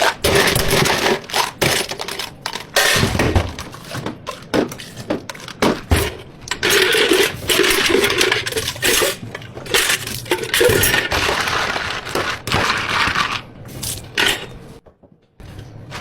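Clatter of drink preparation behind a tea-shop counter: cups, utensils and containers knocking, with many sharp clicks and short rattling stretches.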